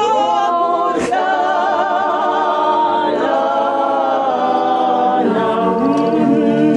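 A congregation singing a slow hymn unaccompanied, several voices holding long notes together.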